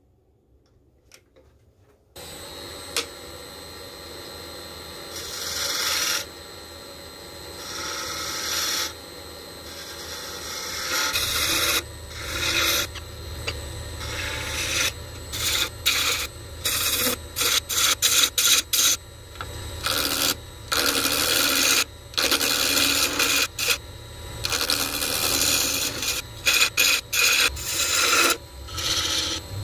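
A wood lathe starts about two seconds in and runs with a steady hum while a tool works the spinning resin-impregnated maple block in repeated passes, each pass a loud rasping burst.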